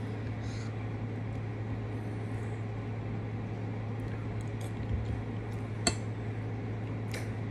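Eating at the table: quiet chewing of mashed potatoes and a few light clicks of a metal fork against a plate, the sharpest about six seconds in, over a steady low hum.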